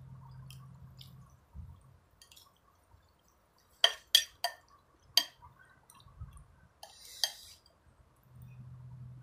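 Metal spoon clinking and scraping against a ceramic soup bowl while eating noodles, with a quick cluster of sharp clinks about four to five seconds in and a short rattle around seven seconds. A faint low hum sits underneath at the start and again near the end.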